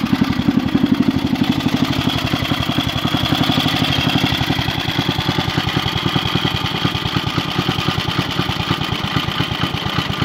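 Small engine of a 1958 Porter Cable garden tractor running steadily at idle, with an even firing beat.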